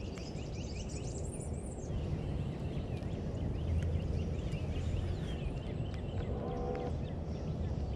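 Outdoor ambience: a steady low rumble of wind on the microphone, with many short bird chirps all through and a brief pitched call about six and a half seconds in.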